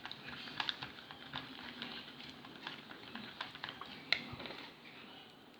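Wooden stick stirring glue and paint in a small bowl: irregular light clicks and scrapes of the stick against the bowl, with one sharper click about four seconds in.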